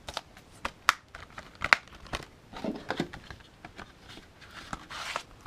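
Plastic Blu-ray and DVD cases being handled: scattered sharp clicks and taps with short stretches of light rustling.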